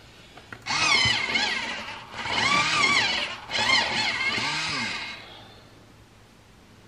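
An engine revving up and down three times in quick succession, then fading out.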